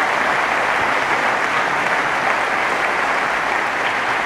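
Audience applauding steadily, a dense even clapping with no break.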